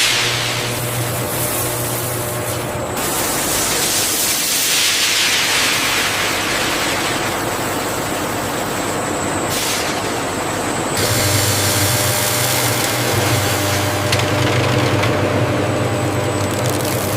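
Plastic-processing factory machinery running: a steady hissing mechanical noise with a low hum underneath. The sound changes character a few times, around 3, 10 and 11 seconds in.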